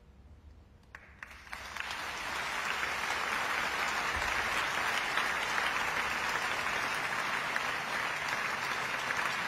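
A large concert audience starts applauding. After a hushed first second, a few single claps come about a second in, then the applause swells within a second into full, steady clapping.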